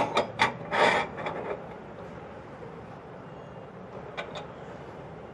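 Metal clinks and short scrapes of gas-stove burner parts being fitted into a stainless-steel stove top, a sharp clink at the start and a few more over the next second and a half. After that only a low steady background hum, with two faint clicks about four seconds in.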